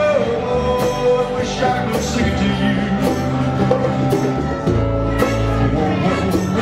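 Live rock band playing: strummed acoustic-electric guitars, bass notes and drums with steady cymbal hits, under a man's sung vocal.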